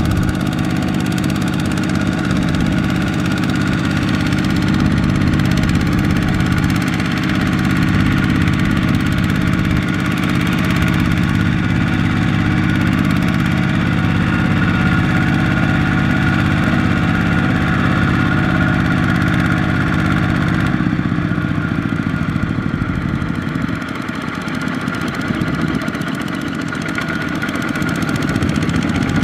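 Two-wheel walking tractor's single-cylinder diesel engine running steadily under load, hauling a trailer of rice sacks through deep mud. The sound eases a little about two-thirds of the way through.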